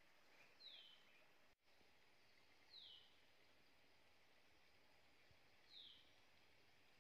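A bird calling faintly three times, each call one short whistle falling in pitch, a few seconds apart, over a faint steady hiss of forest background.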